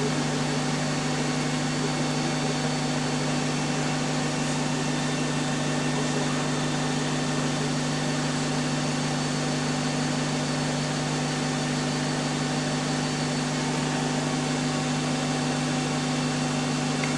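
Bus engine running steadily, heard from on board as an unchanging low drone with a few fixed tones, no rise or fall in pitch.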